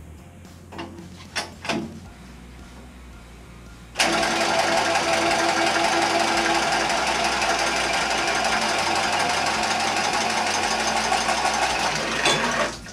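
Power cutting tool running steadily as it cuts through a copper water pipe on a boiler. It starts abruptly about four seconds in and stops near the end, after a few light handling clicks.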